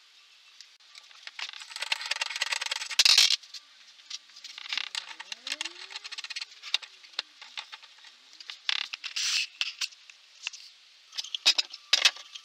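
Hand-work noises from tools and MDF and wooden lathe parts: irregular clicks, taps and scrapes. There is a denser scraping rush that peaks about three seconds in, another about nine seconds in, and a quick cluster of sharp clicks near the end.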